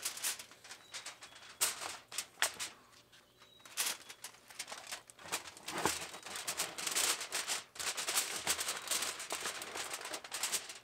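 Disposable aluminium pans clattering onto a metal grill grate, then aluminium foil crinkling in quick crackles as hands press and crimp it over the pans.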